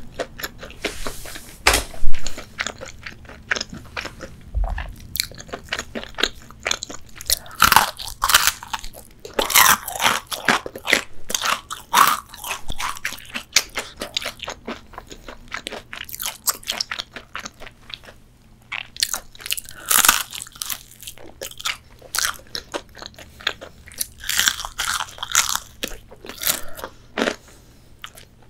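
Crunching bites into the crispy breading of a hot-and-spicy fried chicken wing, with chewing between bites. The crunching comes irregularly, with several louder spells of dense crunching.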